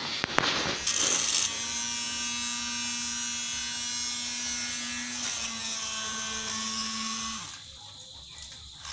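Knocks and clicks for the first second or so, then a small vacuum cleaner motor runs with a steady hum. A little after seven seconds it is switched off and winds down, and right at the end it is switched on again and spins up with a rising pitch.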